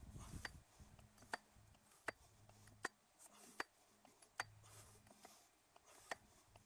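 Faint, evenly spaced clicks, about one every three-quarters of a second, from a 10-ton hydraulic hand pump being worked stroke by stroke. The pump drives a hydraulic cylinder that is pressing an old front wheel hub bearing out of its steering knuckle.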